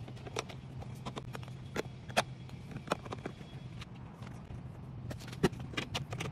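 Scattered sharp plastic clicks and knocks from handling a Milwaukee FUEL cordless wet/dry vacuum's hard case, hose and attachments as it is packed away, over a faint steady low hum.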